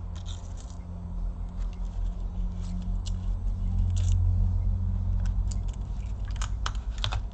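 Scattered small clicks and taps from handling laptop parts and tools, several close together near the end, over a steady low hum.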